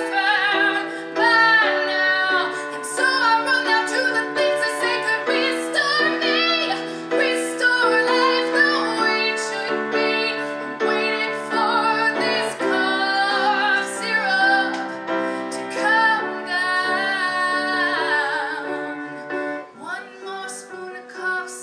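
A woman singing a slow, sustained ballad line with vibrato over piano accompaniment; the voice drops away near the end.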